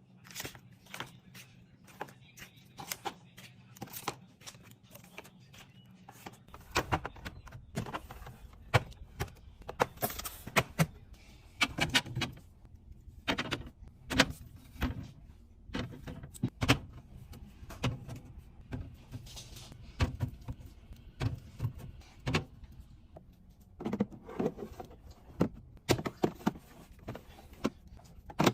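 Plastic food containers and packaging being handled and set on fridge shelves: a string of irregular clicks, taps and knocks, several a second, over a low background hum that gets louder about six seconds in.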